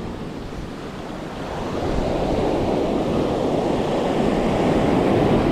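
Ocean surf breaking and washing up the beach, swelling louder about two seconds in.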